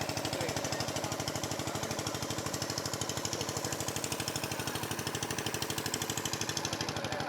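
A small engine running steadily, with a rapid, even beat of about ten pulses a second.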